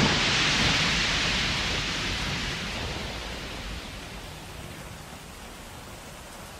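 A rushing, hissing noise like heavy rain, loud at first and fading steadily: an anime sound effect of a great spray of blood raining down.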